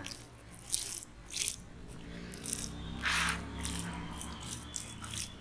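Hands rubbing thick, wet masala paste over the skin of a whole fish on a banana leaf: a string of short wet smearing and scraping sounds, the loudest about three seconds in.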